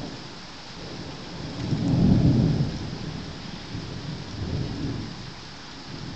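Thunder rumbling over a steady hiss of rain: a loud low rumble swells about two seconds in and fades, followed by weaker rolls of thunder a couple of seconds later.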